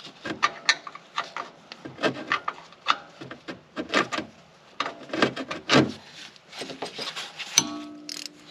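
Box-end wrench turning a nut on a car's sway bar mounting in short strokes: a run of irregular clicks and scrapes of steel on steel, with a metallic clink that rings briefly near the end.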